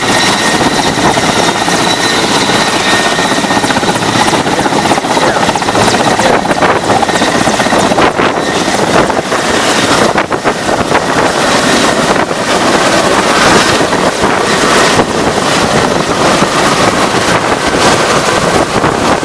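Helicopter running loud: dense rotor and engine noise with a thin, steady high whine. Irregular buffeting comes and goes in the second half.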